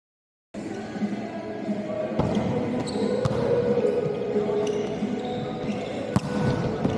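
A basketball bouncing on an indoor court, with a few sharp knocks, over a steady bed of crowd chatter and voices echoing in a large arena. The sound cuts out completely for about the first half-second.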